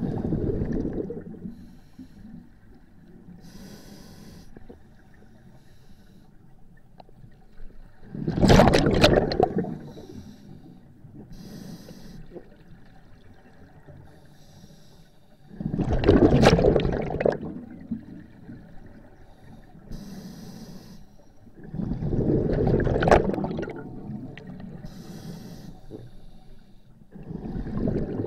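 A scuba diver breathing through a regulator, heard from a helmet or head camera underwater. Exhaled air leaves the regulator in loud rumbling bursts of bubbles about every six to eight seconds, five times in all. Each inhalation between them is a faint hiss of air through the demand valve.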